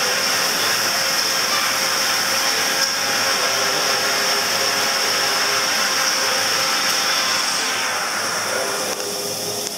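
Steady, loud machine noise: an even hiss with a strong high band. Its lower part drops away near the end.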